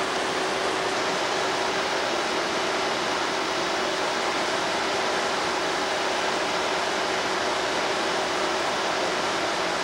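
A steady, even hiss that does not change, with a faint steady hum underneath.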